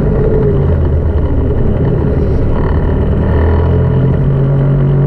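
Snowmobile engine running steadily while riding along a snow trail, its note stepping up about four seconds in.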